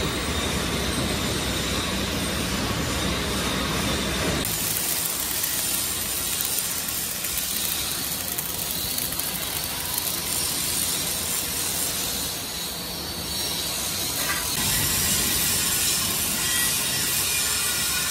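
Wire-feed arc welding on steel: a steady crackling sizzle from about four seconds in. Before that there is a different, lower-sounding workshop noise that cuts off abruptly.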